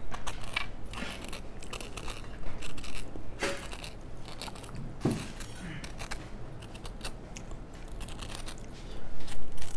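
Kitchen knife peeling the rind off an avocado in a spiral: irregular scraping and crackling strokes as the blade cuts through the skin, louder in spells about a third of the way in and near the end.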